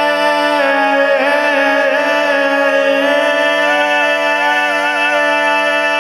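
Four-part men's a cappella singing, all parts multitracked by one singer, holding the closing chord of the arrangement with the baritone part mixed louder than the others. The voices sustain long notes while one part moves through a short run of notes, about a second in and again around the middle.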